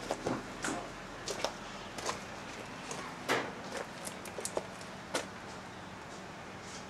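Irregular knocks and clicks from someone walking with a handheld camera, over a faint steady hum. The knocks stop about five seconds in.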